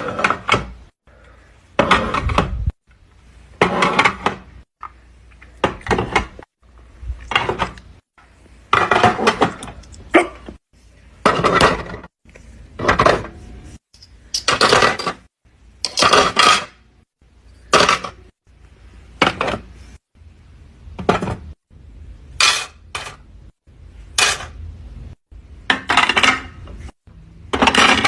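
Hard objects clinking and clattering in short bursts, one every second and a half to two seconds, each cutting off abruptly into silence.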